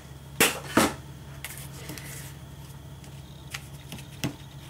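Two brief crinkles of aluminium foil being pulled off the craft mat, less than half a second apart, followed by a few light taps and rustles of cardstock being handled.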